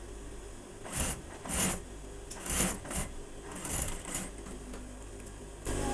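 Industrial sewing machine stitching in about five short bursts while the checked cotton fabric is shifted and rustled under the presser foot, over a steady low motor hum.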